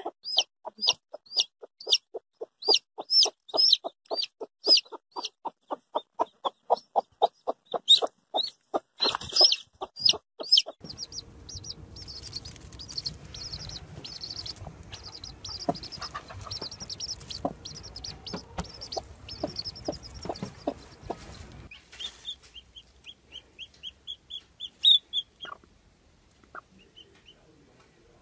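Mother hens clucking to their chicks while the chicks peep. For the first nine seconds the clucking is a fast, even run of about five low clucks a second. After that mostly the chicks' high peeping is heard.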